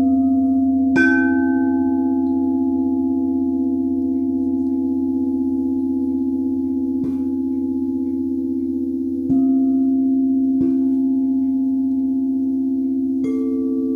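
Singing bowls of several pitches struck one after another, about five strikes, each note ringing on long and overlapping the last, over a low steady hum.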